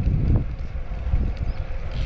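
Wind buffeting the microphone: a loud, uneven low rumble that keeps swelling and dropping.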